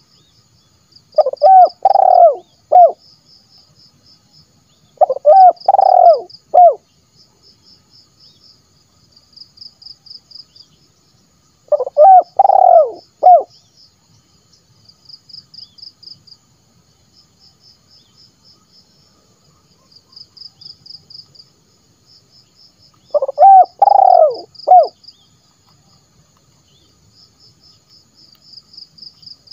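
Spotted dove (tekukur) cooing: four loud phrases of three or four deep coos each, several seconds apart, with a long pause between the third and fourth. A faint, high pulsing trill repeats steadily behind them.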